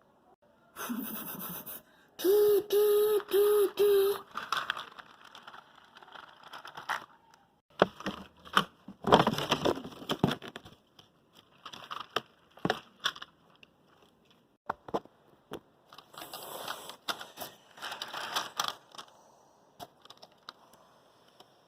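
Four short toots of a horn, like a train horn, then a long run of irregular scraping and crackling clatter.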